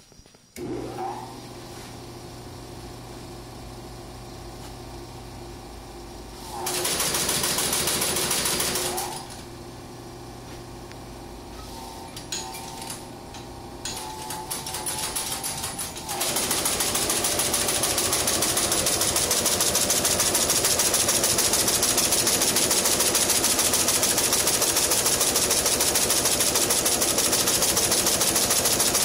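Singer 7-57 heavy-duty industrial sewing machine. Its drive starts with a steady hum about a second in, and it stitches in a short burst. From about halfway it sews continuously at speed through the fabric, a fast, even clatter of stitches.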